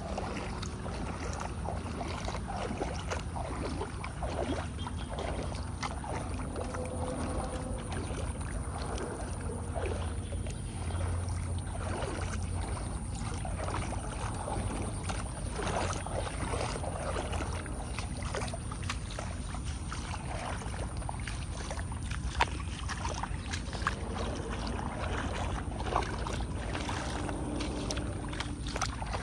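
Shallow floodwater sloshing and splashing in irregular strokes as someone wades through it.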